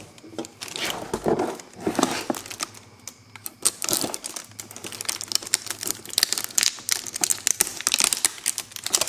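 Plastic shrink-wrap film on a cardboard router box crinkling and crackling as the box is handled and the wrap is worked open, with quick irregular crackles that thin out briefly a few seconds in and grow denser in the second half.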